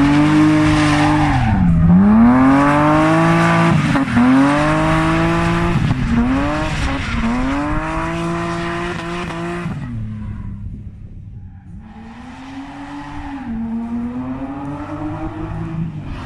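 Drift car's engine revving hard, its pitch climbing and dropping every second or two as the throttle is worked through a slide, over the hiss of tyres squealing. It fades briefly about two-thirds of the way through, then comes back quieter.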